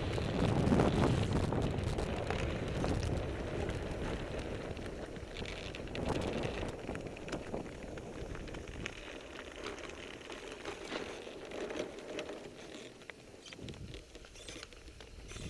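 Blokart land yacht sailing across wet sand: a steady rush of wind and wheel noise with many small crackling clicks, getting quieter over the last few seconds.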